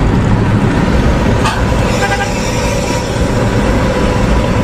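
Engine and road noise of a bus running at highway speed, with a horn sounding briefly about two seconds in.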